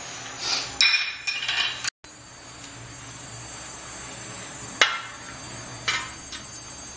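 Whole spices frying in hot ghee in a hammered metal kadhai, with a faint steady sizzle. A burst of clattering comes in the first two seconds, and later a long perforated metal spoon clinks against the wok three times as the spices are stirred.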